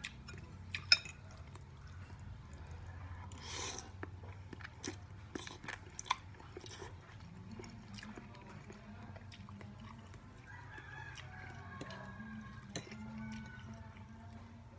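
Quiet eating sounds: scattered light clicks of a metal fork against a plate of noodles over the steady hum of an electric fan. A rooster crows faintly in the distance from about ten to thirteen seconds in.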